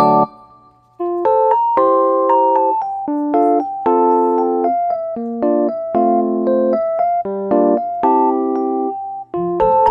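Background music: a soft electric piano playing a gentle run of chords, with short breaks about a second in and again near the end.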